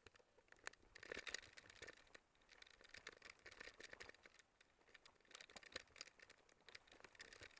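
Faint crunching and rattling of footsteps and mountain bikes being pushed over loose stony ground: a dense run of small clicks and scrapes.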